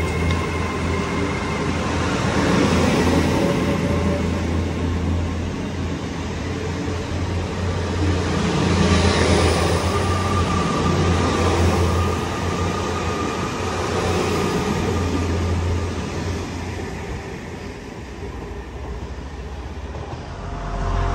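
GWR Intercity Express Train (Class 800-series bi-mode) moving past along the platform, with a steady low engine hum and the rumble of its wheels on the rails. The sound dies down as the last coaches go by, then starts to rise again near the end as another train approaches.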